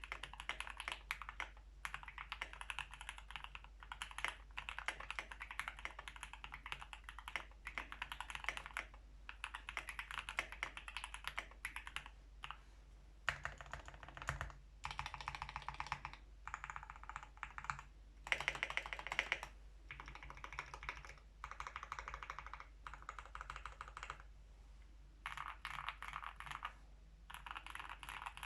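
Typing on a Tofu65 mechanical keyboard with lubed, filmed Alpaca v2 linear switches in a brass plate, a fast run of keystroke clacks in bursts broken by brief pauses.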